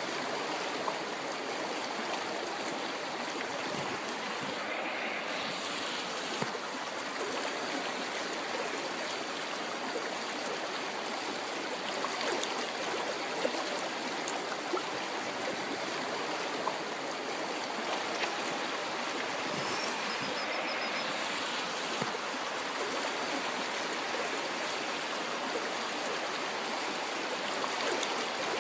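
A river flowing: a steady rush of running water, with occasional small ticks in it.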